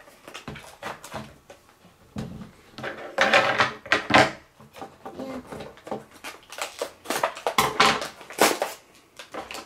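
Plastic and cardboard toy packaging being handled and opened: irregular crinkling and rustling with scattered clicks and taps.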